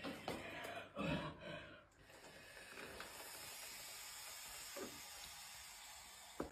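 Faint hiss of room tone, with a few soft breathy, rustling sounds in the first two seconds.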